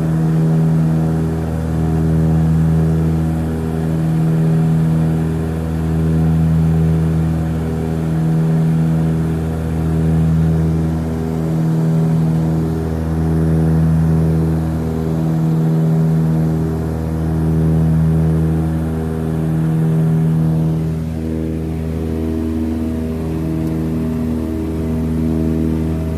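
Aircraft engine and propeller drone heard on board, a steady pitched hum that swells and fades about every two seconds as the engines beat against each other, dropping slightly and changing pattern about three-quarters of the way through.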